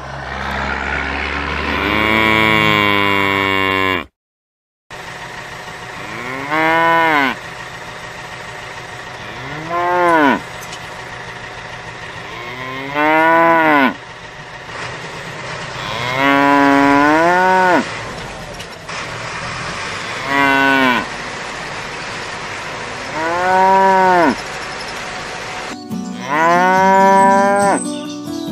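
Cows mooing: about nine long moos a few seconds apart, each rising and then falling in pitch, with the audio cutting out briefly about four seconds in.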